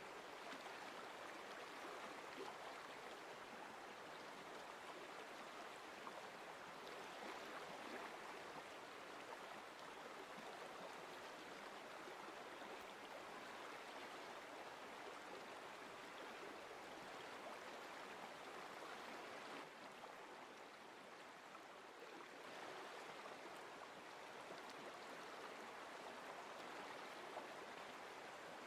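Faint, steady sound of flowing stream water, an even rushing with no distinct splashes.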